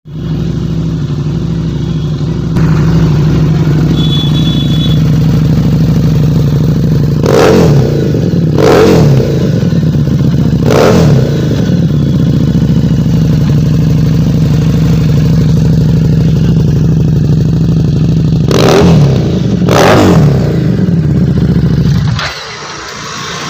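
Harley-Davidson Street 750's liquid-cooled V-twin idling, blipped five times with quick throttle revs that rise and fall, three close together and two more later; the engine sound stops abruptly near the end.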